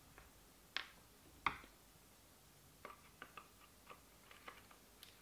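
Faint clicks and ticks of a screwdriver working screws out of a Tamiya Midnight Pumpkin's plastic chassis: two sharper clicks in the first second and a half, then a run of light ticks.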